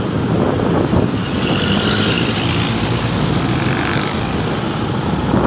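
Motorcycle engine running while riding, under steady wind and road noise on the rider's microphone, with a hiss that swells for a couple of seconds in the middle.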